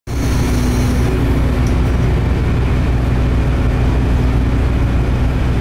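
Car ferry's engines running with a steady low hum as the ship pulls away from its berth.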